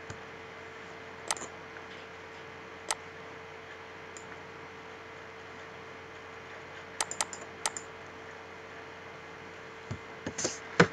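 Scattered clicks of a computer keyboard and mouse: single clicks a second or two apart, then a quick run of four about two-thirds through and a few more near the end, over a steady faint hum.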